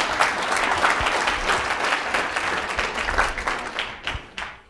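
Audience applauding, fading away over the last second.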